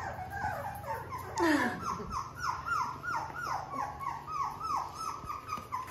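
Three-week-old Labrador puppy whimpering: a steady run of short, high, falling cries, about three a second, starting about a second and a half in.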